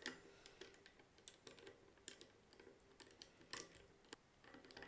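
Faint, irregular clicks and ticks of a hand screwdriver turning small screws into the fitting under a ceiling fan's motor.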